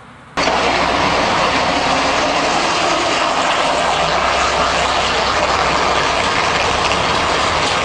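Concrete mixer truck running with a loud, steady roar that starts abruptly about a third of a second in.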